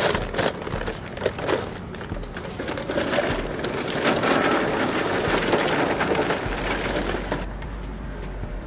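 Charcoal being handled inside a metal grill: scattered clinks and knocks, then a longer stretch of crunching, rustling clatter that eases off near the end.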